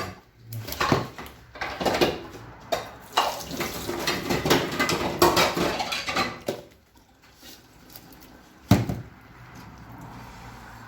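Cooking pots, dishes and utensils clattering: a busy run of clinks and knocks for about six seconds, then one sharp knock near the end.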